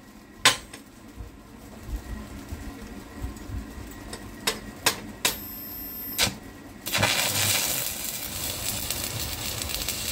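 A few sharp clicks and knocks, then from about seven seconds in a steady sizzling, crackling hiss: a welding arc burning from a Gama 1500 inverter welder, working again after its PFC transistors were replaced.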